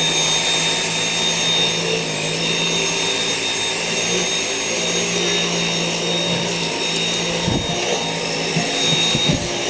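Vacuum cleaner motor running steadily with a high whine over a rushing hiss, with a few low knocks near the end.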